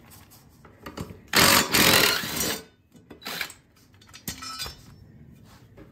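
Cordless power tool running on a lawn mower's blade bolt, zipping it loose in a burst of about a second, then a shorter burst, with a sharp metallic click about four seconds in as the bolt and blade come off.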